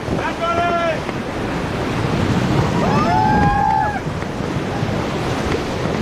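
Rushing whitewater of a Ganges river rapid heard from the raft, with wind buffeting the microphone. Two short shouts rise over it, one just after the start and a longer one about three seconds in.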